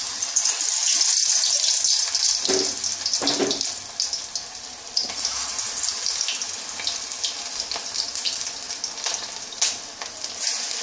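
Battered pumpkin flower fritter deep-frying in hot mustard oil in a kadai: a steady, crackling sizzle, loudest over the first few seconds after it goes into the oil, then easing a little.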